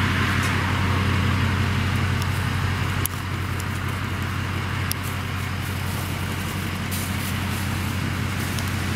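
A motor vehicle engine idling steadily, a low hum under a steady hiss.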